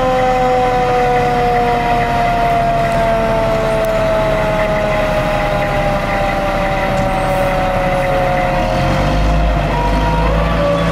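Fire truck siren winding down, its pitch falling slowly and steadily. Near the end the truck's engine rumble swells and the siren tone starts rising again as the ladder truck pulls out.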